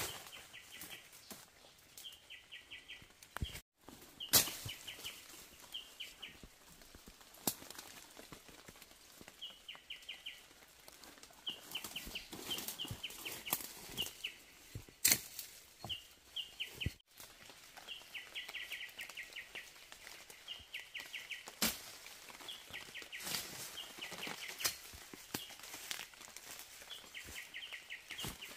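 Footsteps through forest undergrowth, with twigs and dry leaves crackling and snapping, while a bird calls over and over in short quick runs of high notes.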